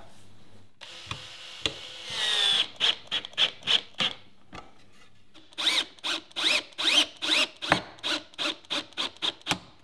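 Cordless drill-driver running screws into the wooden brood box of a hive: a rising motor whine as a screw drives in, then a string of short bursts, about three or four a second, in the second half.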